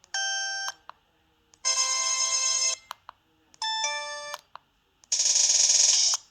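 LG 200c cell phone playing four of its preloaded ringtones in turn, each cut off after about a second with a short silence between. The first three are short electronic melodies; the last is louder and noisier.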